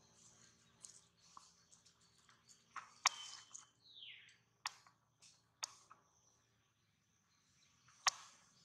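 Faint sharp crackles of dry leaf litter, four of them spread out, with a short high chirp falling in pitch about four seconds in.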